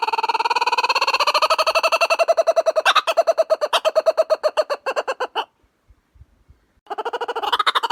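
Kookaburra laughing call: a fast run of rhythmic hoots that rises in pitch, then breaks into slower, separate laughs and stops about five and a half seconds in. After a short pause, a new call starts near the end.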